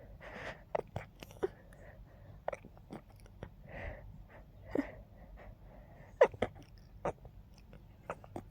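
Stifled sneezes held in with the fingers: a series of short, muffled bursts with hissing breaths in between, the strongest about six seconds in.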